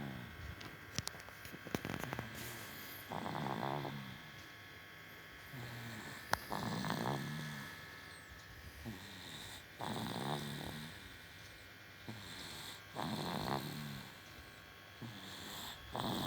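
A sleeping baby, worn out, snoring in slow regular breaths, about one snore every three seconds. There are a few sharp clicks between snores, the loudest about six seconds in.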